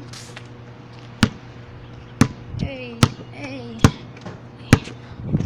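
A basketball bouncing on pavement: five sharp bounces, roughly one a second.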